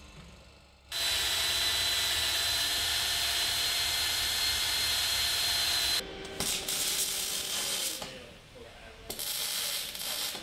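Metal-cutting drop saw starting about a second in and cutting through steel bar stock, a loud steady whine with a thin high ring that stops about six seconds in. Near the end comes the crackling hiss of a MIG welder arc.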